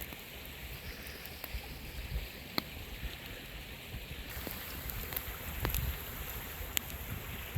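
Steady rushing of a mountain river, with passing low rumbles and a few sharp ticks.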